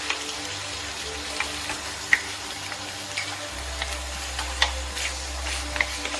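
Tomato sauce and penne sizzling in a frying pan, a steady hiss broken by scattered sharp pops and clicks.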